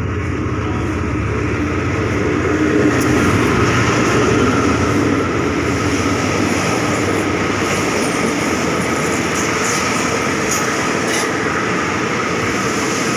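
A diesel-electric locomotive of the GEA class, No. 4548, running past, followed by its passenger coaches rolling by with a steady rumble of wheels on the rails. It swells as the locomotive passes, then settles to an even rolling noise as the train slows for its stop.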